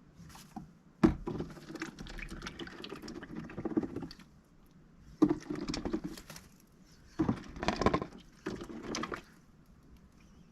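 Mallard duck dabbling and splashing in a shallow water bowl, in four bursts, the first opening with a sharp knock of the bowl.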